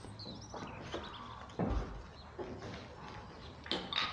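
Footsteps and small knocks of people walking across a room, with a heavier thump about a second and a half in and another sharp knock near the end.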